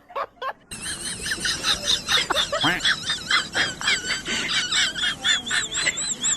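A chorus of many overlapping high-pitched animal squeals and chirps, each note rising and falling, starting abruptly under a second in.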